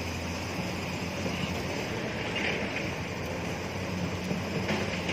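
Engine of a log truck loaded with logs, running hard at full power in a steady low drone.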